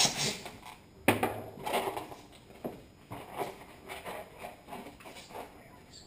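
Latex twisting balloons being handled and twisted by hand: scattered rubbery rubbing and rustling, with a sharp click about a second in.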